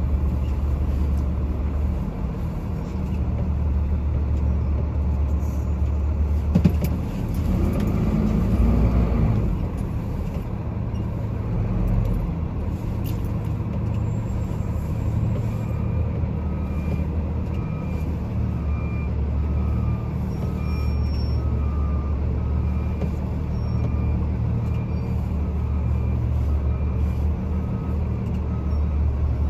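Loaded truck's engine running steadily at low speed, heard from inside the cab, with a single clunk about a quarter of the way in. From about halfway, a backup alarm beeps about once a second.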